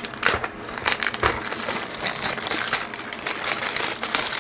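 Plastic packaging crinkling and crackling as it is handled, a dense run of small crackles and clicks.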